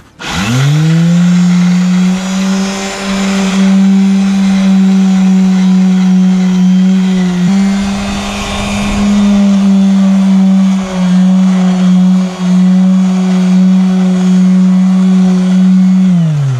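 Electric sander, its pad fitted with rubber and a cloth, buffing sticky vinyl-adhesive residue off a caravan's side panel. It spins up just after the start, runs with a steady hum with a few brief dips under load, and winds down, falling in pitch, near the end.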